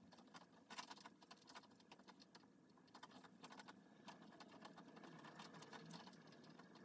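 Faint, scattered light clicks and rustles of hands handling a silicone baby doll and its clothes.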